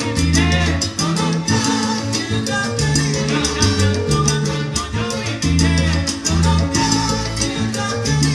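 Live salsa band playing: a bass line of short notes moving under dense, steady percussion, with the rest of the ensemble over it.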